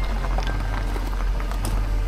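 Background music with scattered short held notes over a steady low hum.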